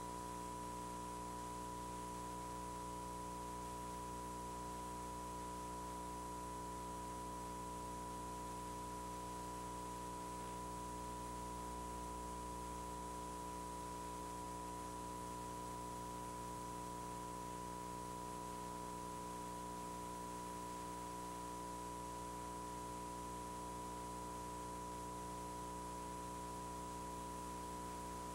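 A steady 1 kHz broadcast test tone held without change, over a low electrical hum and faint hiss.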